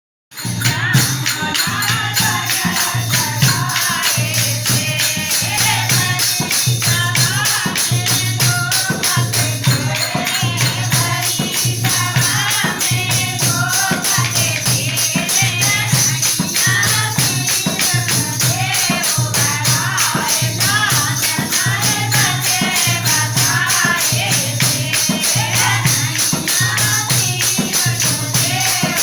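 Devotional Hindi bhajan: a sung melody over a steady beat of about one pulse a second, with dense rhythmic percussion.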